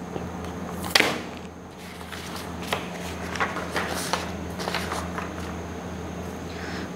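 Sheets of paper being handled as a written page is taken away and a blank one laid in its place: a sharp snap about a second in, then a string of lighter rustles and taps. A steady low hum runs underneath.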